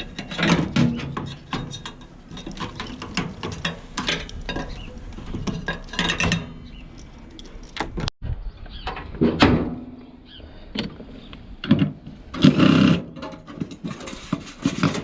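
Hand tools and metal parts clicking, clattering and knocking irregularly as a scrap microwave oven is taken apart, with a few louder clunks of the casing and components.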